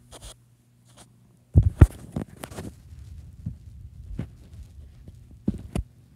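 A series of irregular dull, low thumps and rustles, the loudest cluster about a second and a half in and single thumps scattered after it, from close-up play with a cat rolling and kicking at a string toy on a rug.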